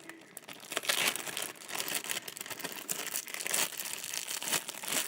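Homemade white slime being stretched and squished by hand: a continuous crackle full of small clicks and pops.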